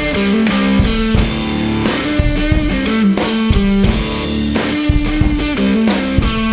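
Live rock music with no vocals: an electric guitar riff with held notes over a drum kit beating steadily.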